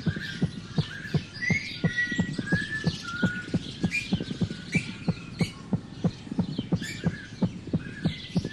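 Small birds chirping and whistling over an even, rapid low thumping, about three thumps a second.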